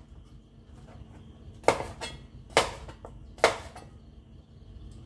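Kitchen knife chopping through a red bell pepper onto a plastic cutting board: three sharp knocks a bit under a second apart, starting about a second and a half in.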